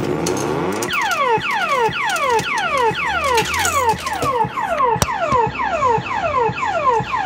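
Electronic sound effect from an Electrocoin OXO Super Reels fruit machine: a swooping tone that falls from high to low, repeated about twice a second in an alarm-like loop, starting about a second in.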